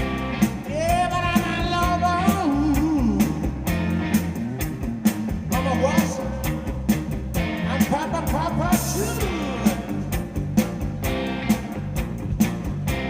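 Rock band playing a song: a steady drumbeat with singing and pitched melodic lines that bend up and down.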